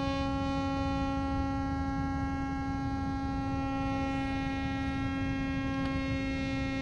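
A battery-powered instrument holding one steady drone note, rich in overtones, over a low rumble.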